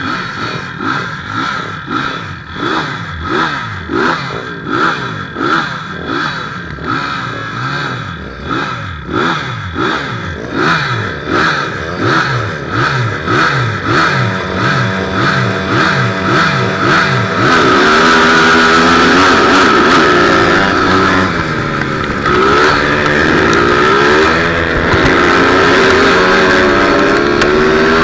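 160cc speedway bike engine being blipped over and over, revving up and dropping back about once a second, then held at louder, sustained high revs with a wavering pitch for the last third.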